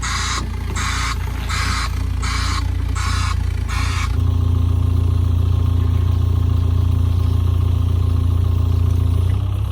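Vehicle engine running. For the first four seconds a rhythmic swishing scrape comes about every three-quarters of a second, and then the engine's low hum steadies and grows louder.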